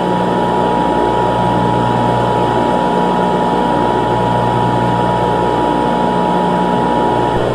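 Emergency Alert System attention signal: a steady two-tone beep just below 1 kHz, held for several seconds and cutting off shortly before the next announcement, over a steady hiss and low hum.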